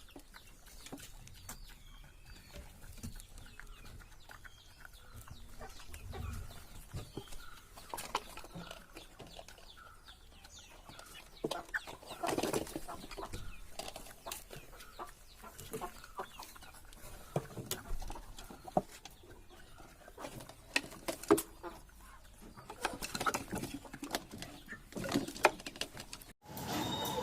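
Aseel chickens clucking, with many scattered sharp clicks. The loudest stretch comes about halfway through.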